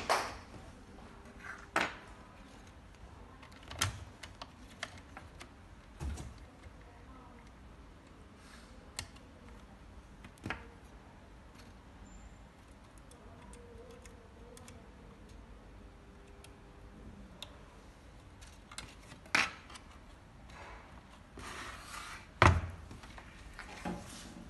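Scattered clicks, taps and knocks as hands and a slim hand tool work on wiring and plastic parts inside an opened electronic console, with the loudest knock near the end.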